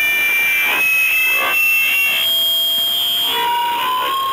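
Shortwave radio receiver audio from a signal on 4880 kHz, demodulated in upper sideband: several whistling tones at once over hiss, sliding slowly upward and shifting pitch in steps. One high tone holds steady through the middle, and a lower tone rises near the end.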